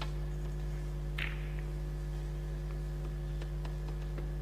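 Steady electrical mains hum on the broadcast audio. One short sharp click comes about a second in, and a few faint ticks near the end.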